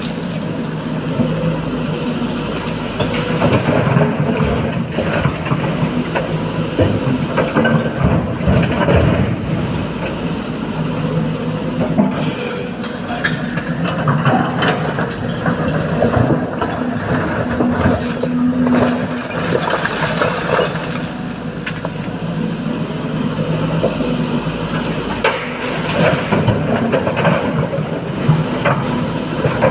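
Heavy diesel engines of an excavator and a dump truck running steadily through loading, with scattered knocks and clatter on top.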